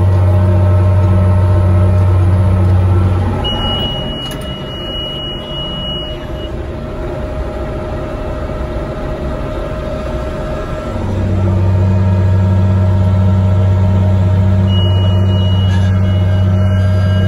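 Tractor engine and New Holland round baler running, heard from inside the cab as a steady low drone that eases off about three and a half seconds in and comes back strongly about eleven seconds in. The baler's cab monitor sounds a long, steady, high beep about four seconds in and again near the end.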